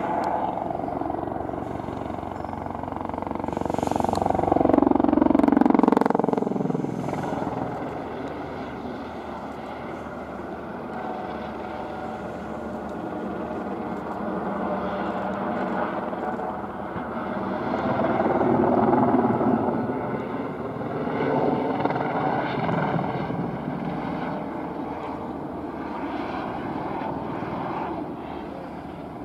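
Airbus EC120B helicopter flying display passes, its rotor and single turboshaft engine running steadily. It grows loud twice, about five seconds in and again near twenty seconds, with the pitch falling as it sweeps past the first time.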